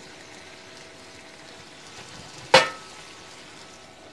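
Chicken drumsticks in a thick ketchup sauce sizzling softly in a non-stick frying pan over low heat. About two and a half seconds in, a glass lid is set down on the pan with one sharp clink.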